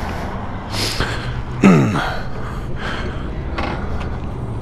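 Close breathing on the microphone, a series of short airy puffs over a low steady hum. About a second and a half in, a brief louder sound drops quickly in pitch.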